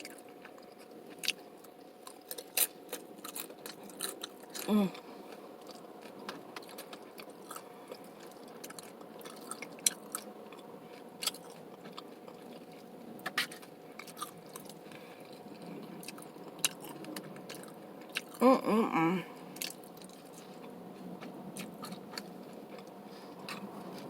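Close-up crunching and chewing of nacho tortilla chips, with many sharp, irregular crunches. A short hum of voice comes twice, about five seconds in and again near nineteen seconds.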